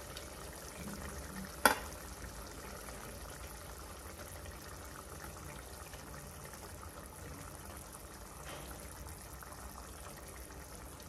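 Thin onion-tomato masala curry simmering in a kadhai over a gas flame, with a soft, steady bubbling. One sharp click sounds about two seconds in.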